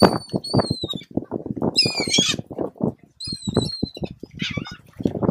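Gulls calling in four bouts of high cries that slide down in pitch, over a fast run of soft thumps.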